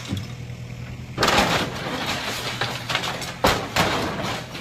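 Demolition with heavy machinery: a low engine hum, then about a second in loud crashing and clattering of breaking material, with a sharp heavy knock about three and a half seconds in.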